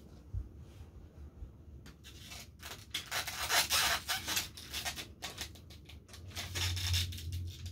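Rubbing and scraping as toy race cars are handled and set back on the track: a run of short scratchy strokes from about two seconds in until just past five, over a low steady hum.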